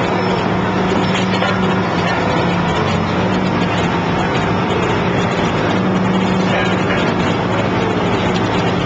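Excavator's diesel engine and hydraulic pump running steadily, a constant drone with a low hum, under load from a hydraulic pile cutter whose ring of pistons is squeezing a concrete pile.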